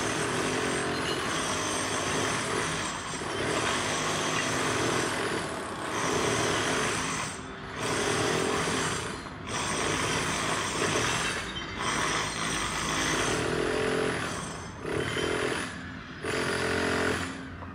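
Demolition hammer breaking up paving tiles, running in bursts of one to three seconds with brief pauses between them.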